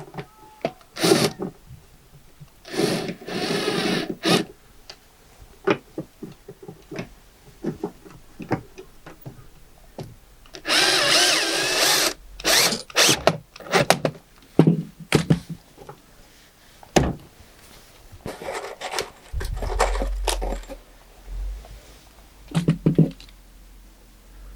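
Power drill driving screws into wood in several short bursts, with knocks and clicks of handling in between. The screws fix a caster's corner bracket into a timber batten.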